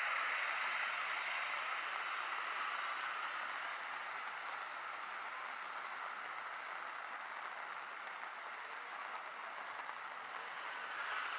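Steady hiss of falling rain, louder at first, easing over several seconds and swelling again near the end.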